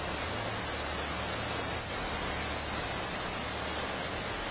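Steady rushing noise of fast floodwater and heavy rain in a flooded street, an even hiss with no let-up.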